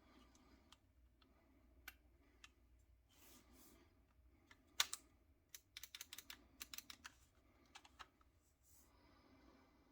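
Sharp clicks and light taps from handling an airsoft M4 rifle. A single loud click comes about five seconds in, followed by a quick run of clicks over the next second or so and a few more shortly after.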